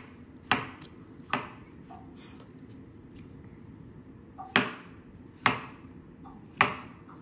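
Chef's knife slicing button mushrooms on a plastic cutting board: five sharp knocks of the blade striking the board, two near the start and three more after a pause of about three seconds.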